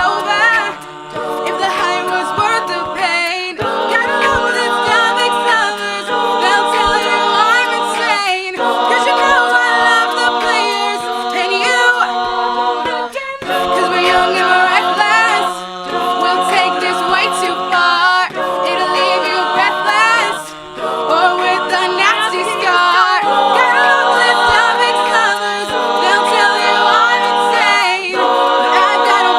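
Collegiate a cappella group singing a pop mashup in close vocal harmony, no instruments: held chords with a moving melody on top, in phrases of a few seconds.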